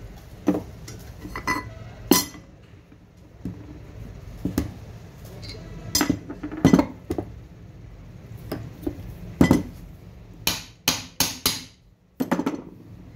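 Metal clinks and knocks of an alternator's aluminium housing, rotor and fan being handled and taken apart on a wooden bench. Scattered single knocks give way to a quick run of about five sharp clicks near the end.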